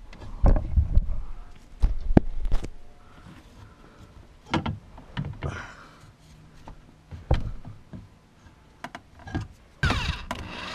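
Handling knocks and thumps as a plastic and aluminium diffuser side piece is pressed against the car's underside, then near the end a cordless drill whirs up to drive a self-tapping screw.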